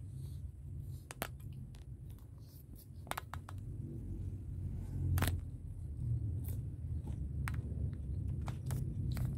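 Eating sounds of a person eating a rice meal with her fingers and chewing cucumber: short mouth clicks and smacks about once a second, over a steady low rumble.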